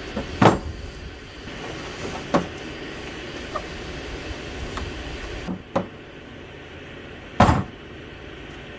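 Workshop knocks and clunks as tools and parts are handled on a work table: about seven separate hits over steady background noise, the loudest about half a second in and another strong one near the end.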